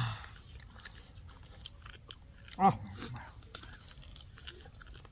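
People chewing and biting into fried chicken lollipops, with small crunches and clicks scattered throughout. A brief voice sound comes about two and a half seconds in.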